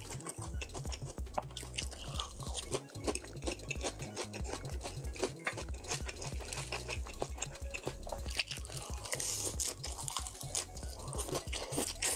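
Close-up chewing of raw salmon slices with crisp lettuce, with many irregular crunches, over background music with a low bass line.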